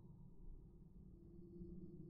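Near silence, with a faint low hum; a faint steady low tone comes in about a second in.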